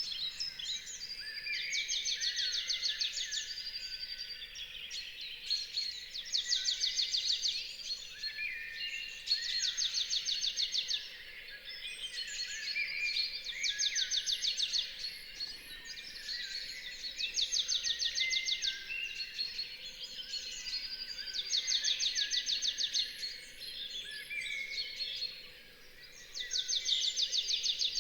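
Dawn chorus: many birds singing at once. One bird repeats a rapid trilled phrase about a second and a half long every four seconds or so, with other songs overlapping between the trills.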